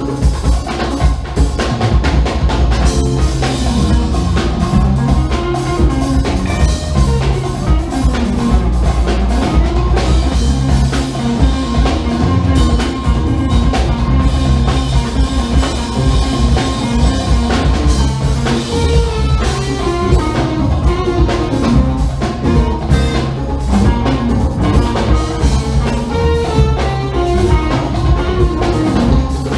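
Live funk band playing: drum kit and hand percussion driving a steady beat under electric bass, electric guitar and tenor saxophone.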